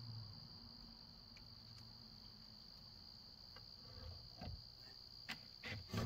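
Crickets trilling faintly and steadily in near quiet, with a few soft knocks in the last couple of seconds.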